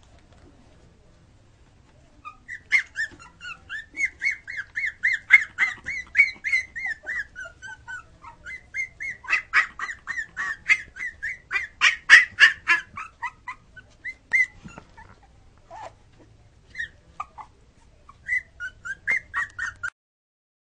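One-month-old Cairn terrier puppy fussing, crying in rapid high-pitched squeals at about three or four a second for around twelve seconds, then a few scattered squeaks near the end.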